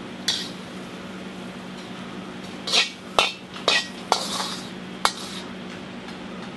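A metal utensil knocking and clinking against a plate and pieces of fried lobster shell: about six separate sharp clinks, most of them close together in the middle, over a steady low hum.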